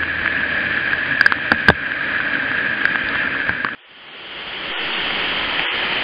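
Steady rushing of a waterfall, with a few sharp clicks about a second in. The sound cuts out abruptly about two-thirds of the way through, then the rushing water fades back in.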